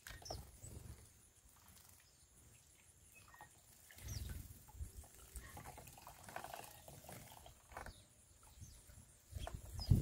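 House sparrows splashing and fluttering their wings in a shallow bird bath, in short scattered bursts that are loudest about four seconds in and near the end, with a few brief high chirps.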